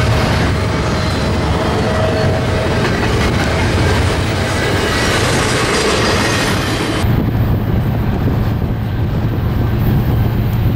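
Double-stack intermodal freight cars rolling past, a steady rumble of steel wheels on rail with a faint squeal and clickety-clack. About seven seconds in it changes abruptly to a lower, steady rumble, a diesel freight locomotive drawing near.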